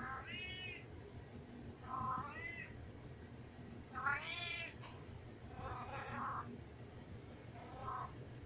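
Siamese cat meowing loudly and insistently, five drawn-out calls about two seconds apart, the loudest near the middle: demand meowing to be let upstairs.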